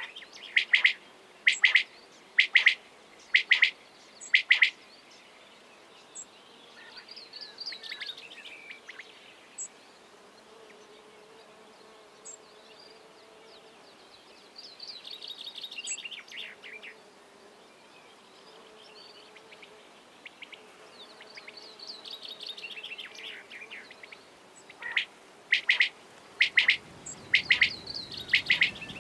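Male common quail calling: a series of loud, sharp, evenly spaced notes for the first few seconds and again near the end. Quieter descending trills of other birds fall in between.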